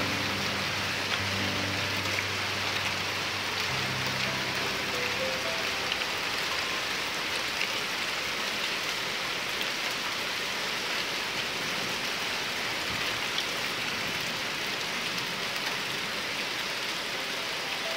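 Heavy rain pouring steadily onto a paved courtyard and the roofs of parked cars, an even hiss with no let-up.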